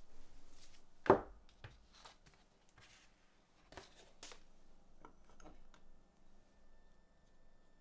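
Leatherworking tools and leather being handled on a workbench: one sharp knock about a second in, then scattered light taps and clicks, growing quieter near the end.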